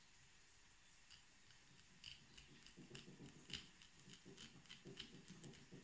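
Faint kitchen knife cutting into pineapple flesh on a cutting board: soft, irregular clicks and scrapes that start about two seconds in.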